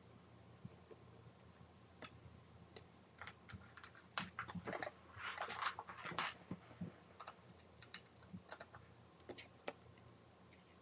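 Light clicks and taps from handling the opened tablet and its small parts on the workbench, scattered through, with a quick run of louder clicks and scraping between about four and six and a half seconds in.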